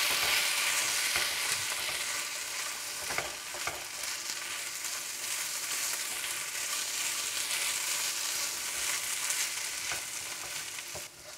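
Rice and bulgur sizzling as they fry in a non-stick frying pan, stirred with a spatula, with the odd scrape of the spatula against the pan. The sizzle drops away just before the end.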